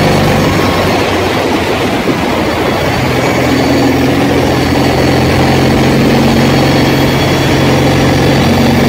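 Vehicles travelling at speed on a road: a steady low hum over road and wind noise, with a slightly higher hum line coming in twice.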